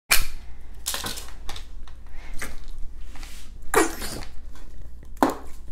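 Orange fart putty being pressed down into its plastic tub, pushing out about six short, fart-like bursts of air, the strongest nearly four seconds in.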